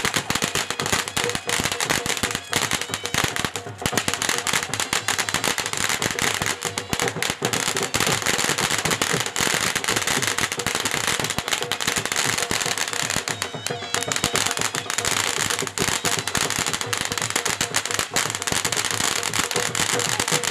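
Fireworks and firecrackers going off in a rapid, unbroken string of bangs and crackles, many a second, with music playing faintly underneath.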